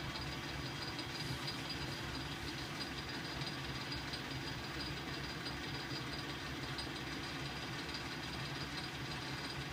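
Metal-turning lathe running steadily with an aluminium alloy piston in its four-jaw chuck: a steady motor and gear hum with a faint high whine. The tool is set for a very light cut and is not yet cutting, so there is no chip noise.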